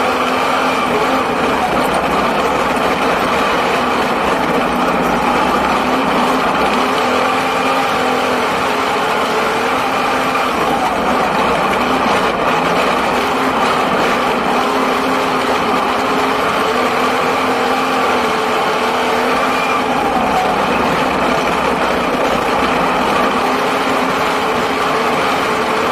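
Tassie Sixes speedway sedan's six-cylinder engine running hard, heard from inside the cockpit. The note holds steady, with the revs rising and dipping slightly.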